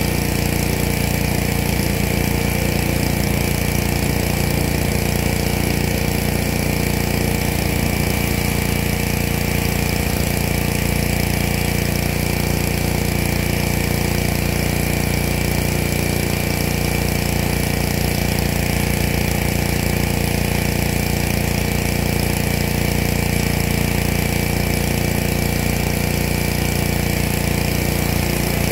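Pressure washer running steadily, its small engine holding an even drone under the hiss of the spray.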